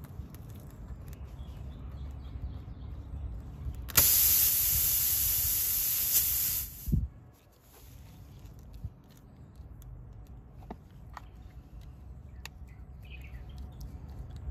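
Pressurised air hissing loudly out of a punctured car tyre for about three seconds once the puncturing object has been pulled from the tread, starting suddenly and cutting off abruptly, with a low thud as it stops. Faint clicks of the pliers and reaming tool come before and after.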